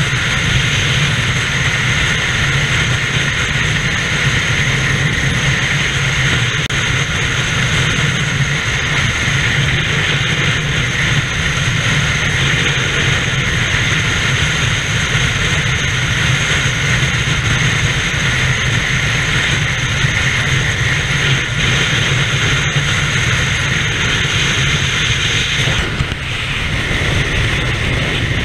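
Steady rush of wind over a moving camera's microphone, mixed with the roar of freeway traffic passing close by; the noise eases briefly about 26 seconds in.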